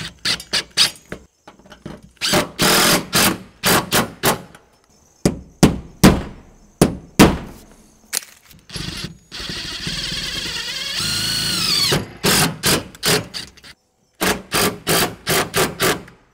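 Cordless DeWalt drill/driver driving Tapcon screws with fender washers through sheet-metal siding to fasten a steel strut channel. It runs mostly in short trigger bursts in quick series, with one longer run in the middle whose pitch rises toward its end.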